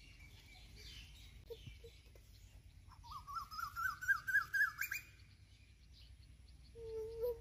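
A bird gives a quick run of about ten chirps that climb steadily in pitch over about two seconds. Near the end a lower, drawn-out call begins.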